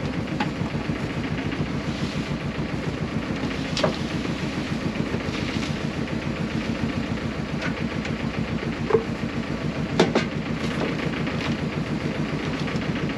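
Fishing boat's engine running steadily with a fast even pulse, while water poured from a metal bucket splashes into a wicker longline basket to wet it. The bucket clanks sharply a few times, the loudest about ten seconds in.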